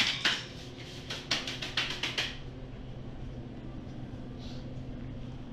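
A quick run of about a dozen sharp clicks and knocks over the first two seconds, then only a steady low hum.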